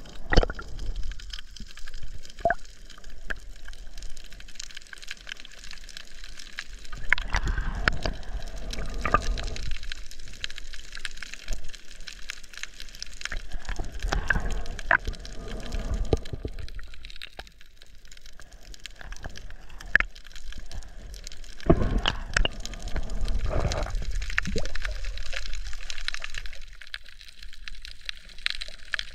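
Muffled underwater sound of water moving past the camera: a low rushing that swells and fades a few times, with scattered sharp clicks.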